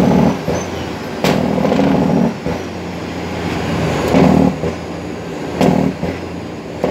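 Diesel engine of an International 9900i truck heard from inside the cab, its note surging and dropping off several times as the driver works the gear lever through the shifts. A couple of sharp clicks come through along with it.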